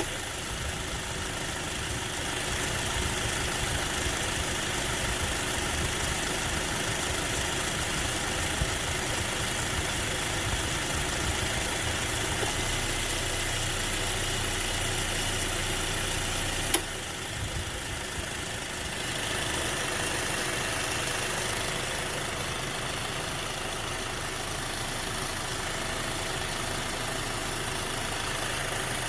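2010 Acura TSX engine idling with the newly replaced AC compressor running and the radiator fan spinning: the system is working. A single sharp click comes about two-thirds of the way through, after which the sound drops for a couple of seconds before picking up again.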